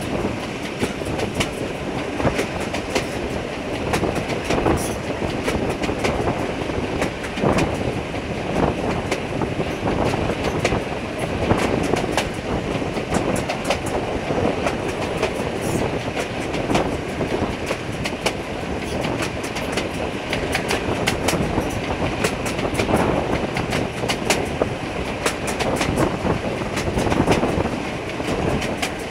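Heritage railway passenger carriage running along the line, its wheels clattering steadily over the rail joints with the rush of the moving train, heard from an open carriage window.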